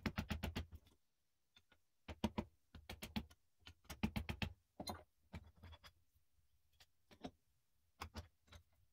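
Steel chisel picking and scraping old wood out of the eye of a hatchet head held in a vise, with short runs of quick sharp clicks as the blade knocks against the steel walls, broken by brief pauses.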